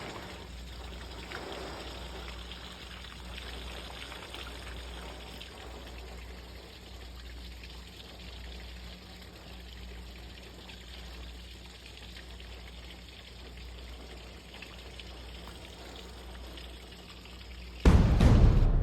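Rain falling, with runoff water pouring and trickling steadily. About a second before the end a much louder sound cuts in suddenly.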